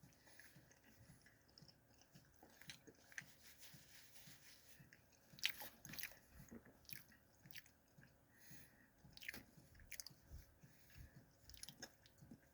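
Faint close chewing of a mouthful of crunchy barbecue chicken sandwich, soft repeated jaw and mouth sounds with small crunches, and one sharper click about halfway through.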